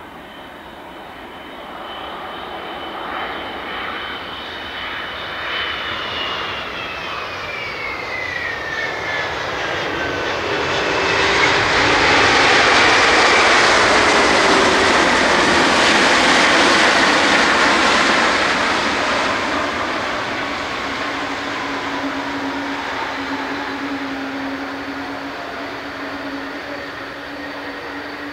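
Boeing 777-200 airliner's jet engines on landing. A high whine slides down in pitch as the plane comes in and passes. The sound swells to a loud roar about halfway through as it rolls down the runway, then fades as it slows, leaving a low steady hum.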